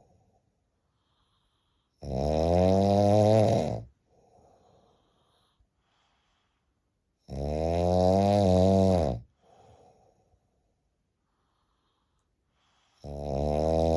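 A person snoring with a loud, sawing rasp: long pitched snores about every five and a half seconds, each followed by a short, faint breath. The third snore starts near the end.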